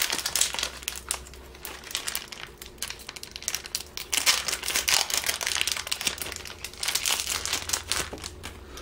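Foil Pokémon trading card booster pack wrapper crinkling and tearing as it is pulled open by hand, in several spells of crackle.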